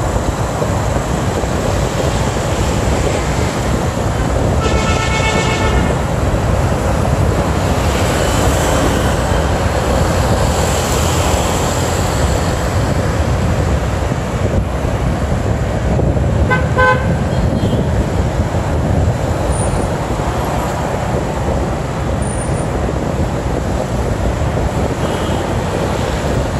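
Steady wind and engine rumble of a motorbike riding through city traffic. A vehicle horn sounds about five seconds in, held for a little over a second, and a few quick horn beeps come about seventeen seconds in.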